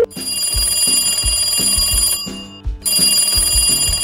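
A high, bright ringing sound effect, like an alarm bell, in two spells: about two seconds, a short break, then again near the end. Background music with a steady beat runs under it.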